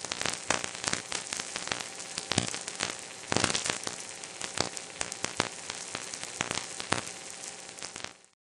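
Steady crackling static with many sharp, irregular clicks and pops. It grows denser and louder about three and a half seconds in, and cuts off suddenly just before the end.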